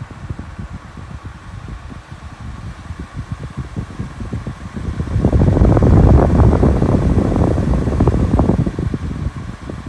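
A 2010s Eco Air dehumidifier's fan running: a steady airy hiss over low, gusty buffeting. The buffeting swells much louder about halfway through for a few seconds, then eases back.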